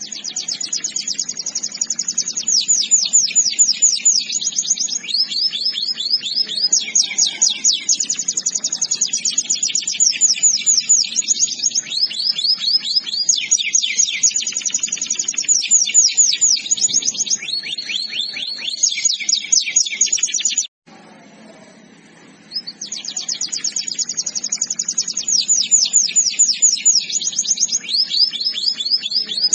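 Canary singing a long, fast, high-pitched song of rapid trills and rolls, changing from one trill to the next every second or two. The song cuts off suddenly about two-thirds of the way through and picks up again a couple of seconds later.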